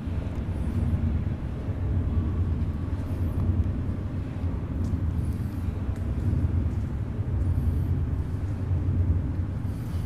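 Steady low outdoor rumble, with a faint high chirp about every two seconds.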